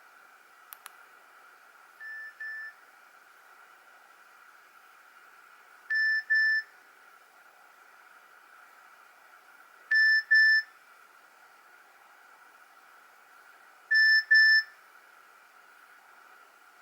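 Nokia 113 mobile phone playing a simple two-beep ringtone through its speaker: a pair of short high beeps every four seconds, four times over, each pair louder than the last. A faint click comes just before the first pair, over a steady faint hiss.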